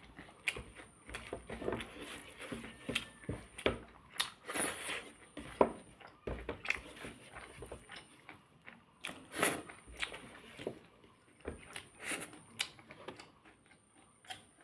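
A person eating close to the microphone: irregular clicks and short crunchy bursts of biting and chewing, several a second.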